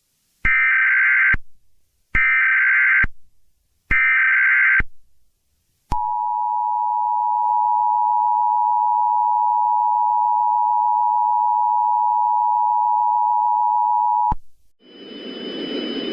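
Emergency Alert System alert tones: three short bursts of SAME digital header data, each under a second long, then the two-tone attention signal held steady for about eight seconds before cutting off sharply. A steady hiss begins near the end.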